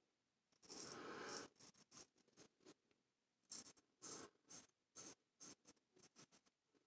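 Large straight razor scraping through lathered stubble on the chin, in faint rasping strokes: one longer stroke about a second in, then a run of short quick strokes from past the middle.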